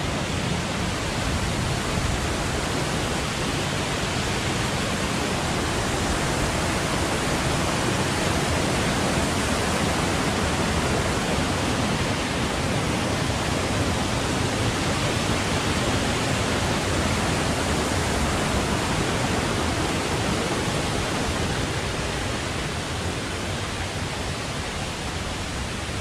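Steady rush of water pouring down a rainforest waterfall, an even loud hiss, easing slightly near the end.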